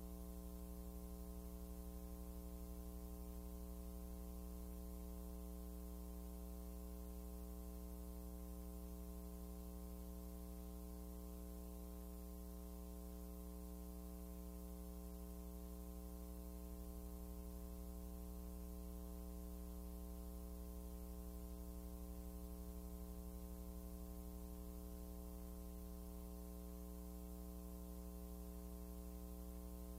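Steady electrical mains hum with a stack of overtones, unchanging throughout, and no other sound.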